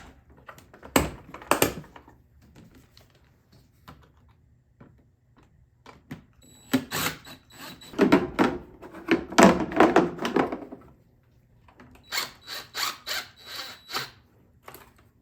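Tools with an 8 mm socket undoing the clamp and fasteners on a Jeep TJ's stock air intake, with plastic parts clunking and rattling as they come off. There are scattered knocks, a dense stretch of clatter in the middle, then a quick run of about seven clicks near the end.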